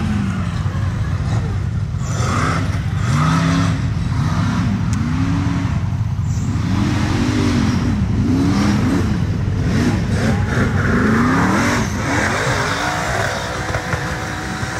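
Off-road race buggy engine revving hard, its pitch rising and falling in quick repeated surges, over a steady low engine drone.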